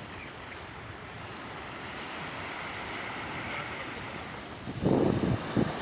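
Sea waves washing up the beach: a steady rush that slowly swells. About five seconds in, a louder, uneven low rumble of wind buffets the microphone.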